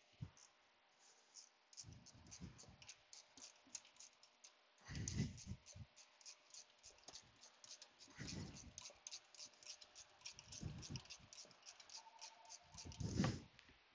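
A 2002 Ford Ranger's newly fitted AC compressor being turned over by hand a few times. It gives a run of faint clicks, about four a second, with a few dull knocks.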